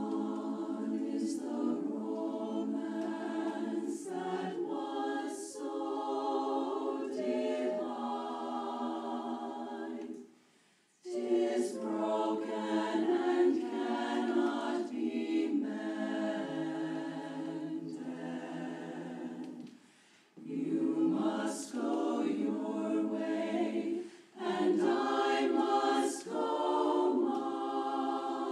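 Women's barbershop chorus singing a cappella in close harmony, in sustained phrases broken by short pauses for breath about ten seconds in, around twenty seconds and again near the end.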